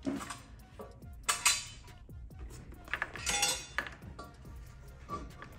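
Metal exhaust manifold clanking and clinking against the engine and chassis as it is worked out of the engine bay, a handful of separate knocks each with a short metallic ring.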